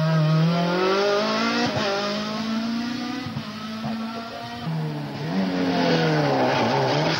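Rally car engine pulling hard away from a hairpin, its note climbing and breaking at gear changes, then fading. About five seconds in, the next rally car arrives, its engine loud again and swinging up and down in pitch as it works through the bend.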